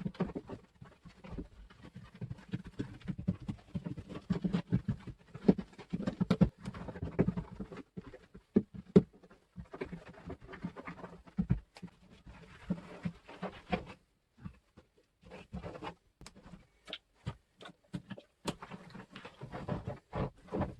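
Hands dabbing and smearing a wet flour-and-water paste over a foam form, an irregular run of short wet pats and rubs.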